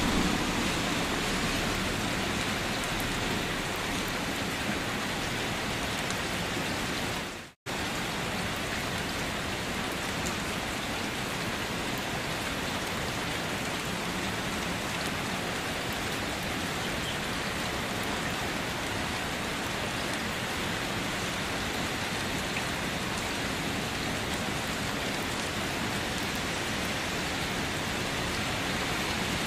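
Steady rain falling, an even hiss of many drops. About seven and a half seconds in, the sound fades out and cuts to a split second of silence, then comes straight back.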